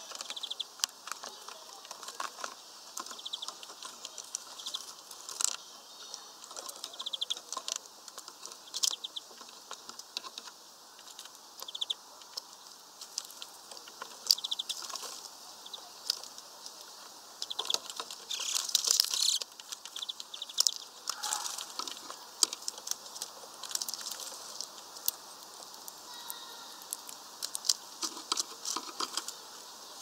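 Greenfinches pecking at peanuts in a mesh-bag feeder: irregular sharp tapping clicks of beaks on shells and netting, with short high chirps now and then. A brief flurry of wing flapping about 18 seconds in.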